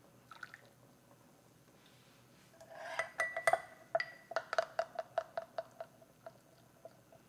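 Metal spoon clinking against a small glass bowl, about four quick taps a second with a short glassy ring, as cornstarch is stirred into broth to make a slurry for thickening soup.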